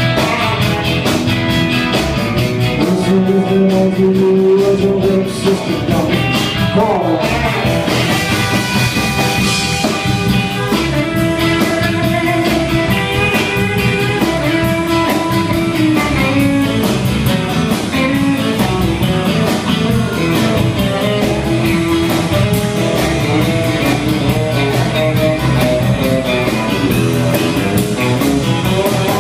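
Live rock-and-roll band playing loudly: electric guitars over bass guitar and a drum kit, with guitar notes sliding in pitch about six seconds in.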